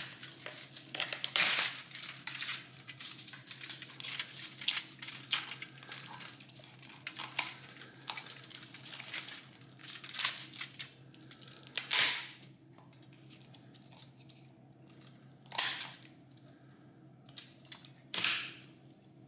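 Kitchen shears cutting through a raw turkey's backbone, the rib bones giving way in a quick run of crunching snaps. After about twelve seconds the snaps thin out to three louder single cracks.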